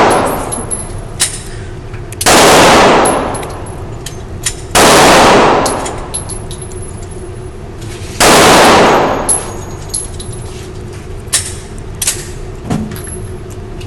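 Handgun fired three times at a shooting range, a few seconds apart. Each shot is very loud with about a second of echoing tail, and fainter sharp clicks fall in between.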